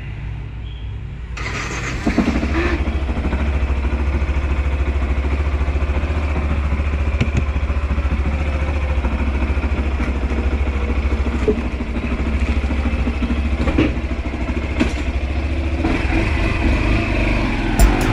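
Small single-cylinder motorcycle engine of a Yamaha Fazer 150. It sets in suddenly about a second and a half in and then runs steadily.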